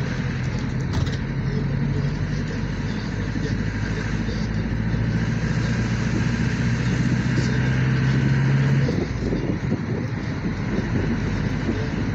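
Motor vehicle riding along a city street: engine hum over road noise, steady until about nine seconds in, when the hum drops away and rougher road noise remains.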